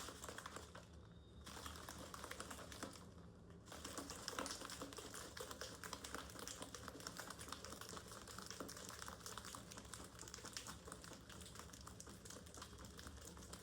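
Ice cubes rattling inside a bottle being shaken to mix protein powder with water: a fast, dense run of clicks. It pauses twice in the first few seconds, then goes on without a break.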